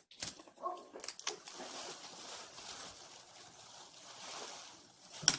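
Freshly opened bottle of orange Ramune soda fizzing with a steady hiss, and a sharp click near the end.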